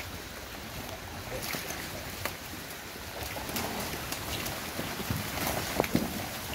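Steady wind rumble on the microphone, with scattered sharp clicks and knocks that grow more frequent in the second half and are loudest about six seconds in.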